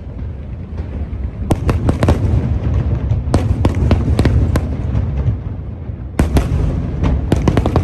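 Aerial fireworks display: a continuous low booming rumble, with clusters of rapid sharp crackling cracks breaking out about a second and a half in, again around three and a half seconds, and once more near the end.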